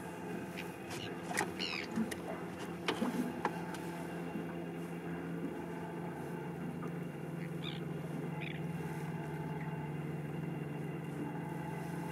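Steady hum of a boat motor, growing a little stronger about halfway through. A few sharp clicks sound in the first few seconds, and short high chirps come twice later on.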